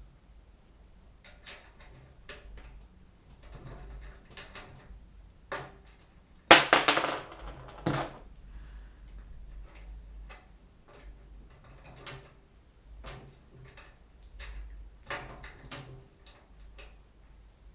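Hands handling computer parts: scattered small clicks and taps, with one loud rustling scrape about six and a half seconds in that lasts a second and a half.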